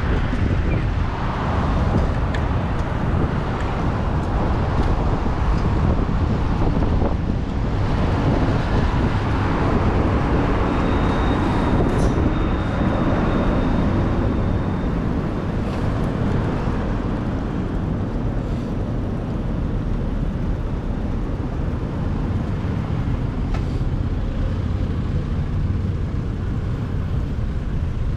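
Steady city road traffic: car and van engines and tyres, with a continuous low rumble.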